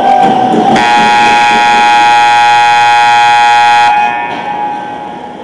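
Ice rink's scoreboard horn sounding one steady blast of about three seconds, starting under a second in, signalling the end of the game. Rink noise from the scramble at the net before it.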